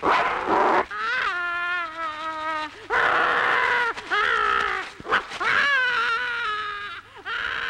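Cartoon character voices wailing and howling in long, wavering held cries, with a harsh screech about three seconds in.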